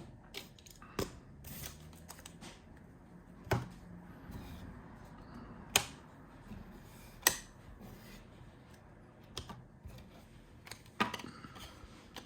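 Trading cards and card holders being handled on a table: a handful of sharp, irregular clicks and taps, five of them louder than the rest.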